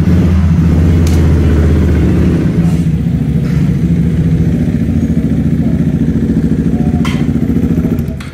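Single-cylinder Supermono racing motorcycle engine running loudly at fairly steady revs, with a fast pulsing exhaust note; it drops away just before the end.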